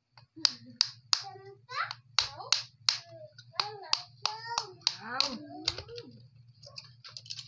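Close-up mukbang eating sounds from raw clams: a quick uneven run of sharp wet smacks and slurps, some ending in short squeaky sounds. A steady low hum lies underneath.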